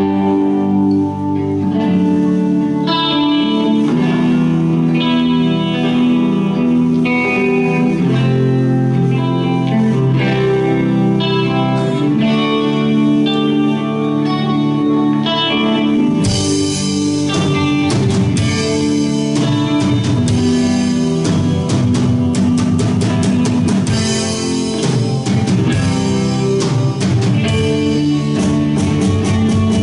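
Live rock band playing: slow, held guitar chords at first, then the drum kit comes in with cymbals about sixteen seconds in.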